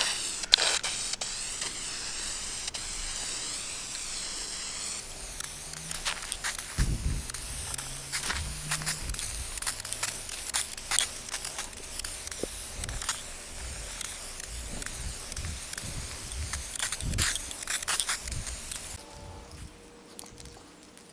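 Aerosol spray can of Dupli-Color vinyl and fabric paint hissing as matte black is sprayed onto fabric carpet: one long steady spray at first, then shorter spurts with scattered clicks, stopping shortly before the end.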